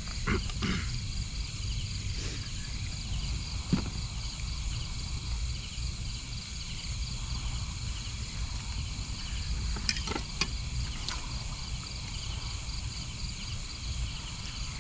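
Steady night chorus of crickets and other insects, shrill and finely pulsing, over a low background rumble. A few light clicks of spoons on dishes come through, about half a second in, near four seconds and around ten to eleven seconds.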